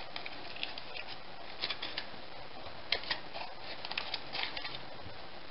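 Aluminium foil cup crinkling in the hands as it is peeled away from a freeze-dried soap puck: faint, irregular small crackles and clicks.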